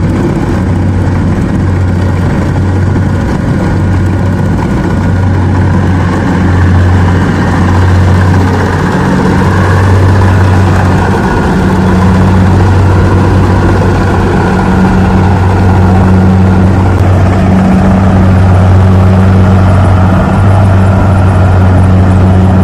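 Rice combine harvester's diesel engine running steadily under load, a loud continuous low hum with the machine's mechanical clatter over it.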